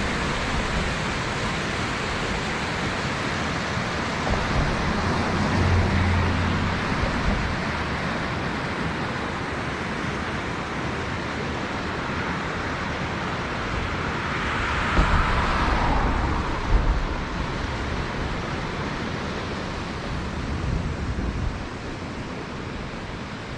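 Steady rushing water from a cascade, with a swell in the noise about fifteen seconds in and occasional low wind rumble on the microphone.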